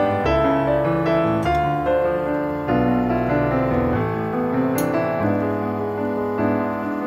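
Background piano music, a gentle melody with notes changing steadily.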